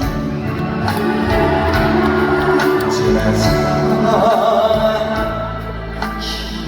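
Live trot band accompaniment playing loudly through the stage sound system, an instrumental passage with no clear lead vocal.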